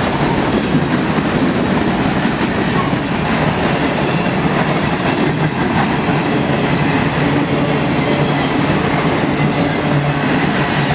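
A CSX freight train's cars rolling past at speed at close range: a loud, steady rush of steel wheels on the rails, with clickety-clack.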